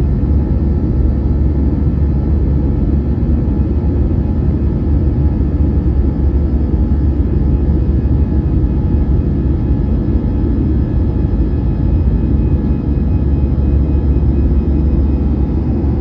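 Airbus A320 jet engines running steadily under takeoff power: a loud, even rumble with faint steady whining tones above it.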